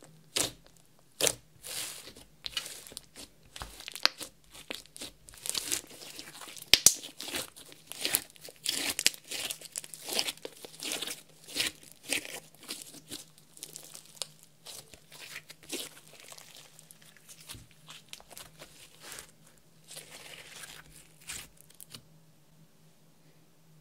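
Clear slime mixed with makeup and glitter, worked by hand: pressed, squeezed and stretched, giving a dense run of sharp clicks and pops. The sounds stop shortly before the end, when the slime is left coiled.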